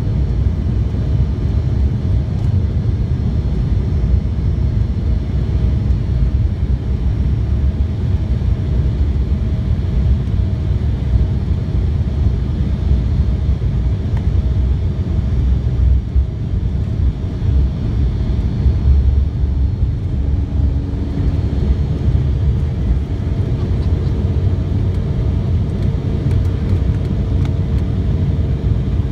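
Embraer 190 airliner's twin GE CF34 turbofan engines at takeoff power heard inside the cabin over the wing, a loud steady rumble through the takeoff roll. A steady engine tone joins about two-thirds of the way through as the jet lifts off.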